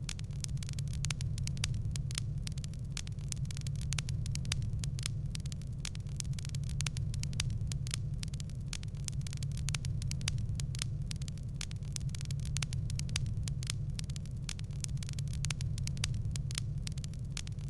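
Wood fire crackling in a fireplace: a dense, irregular run of sharp pops and snaps over a steady low rumble.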